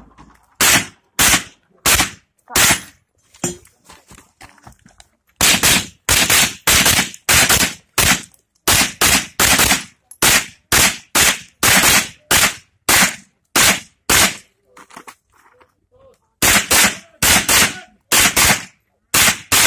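Pistol-caliber carbine firing a stage: a few shots about a second in, then after a short pause a long run of shots at roughly two a second, a pause of about two seconds a little past the middle, and another quick run of about eight shots near the end.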